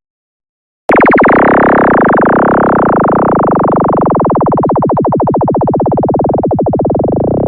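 Synthesized sci-fi sound effect: after about a second of silence, a loud electronic tone with fast pulsing starts abruptly and keeps going, its brightness slowly sinking.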